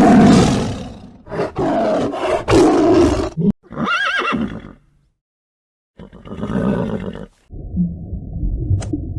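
Horse neighing, several calls broken by brief silences, the loudest at the start. A different muffled low sound follows near the end.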